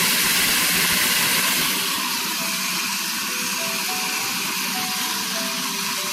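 Electric grinder running steadily while grinding seeds into a fine powder feed, its noise dropping slightly in the low end a couple of seconds in.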